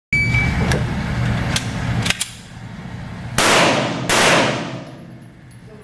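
Two loud pistol shots about two-thirds of a second apart, each dying away in a long echo. Before them come a few fainter sharp cracks over a low rumble that stops about two seconds in.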